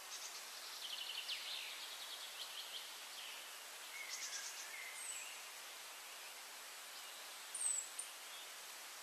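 Small songbirds singing in the background: quick trilled note series and short slurred whistles, over a steady faint hiss. A brief high, falling whistle near the end is the loudest note.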